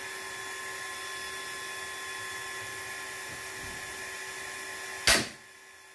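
A steady background hum with a few fixed high tones, then one sharp snap about five seconds in as the RS-X7 slingshot crossbow is shot, its bands released.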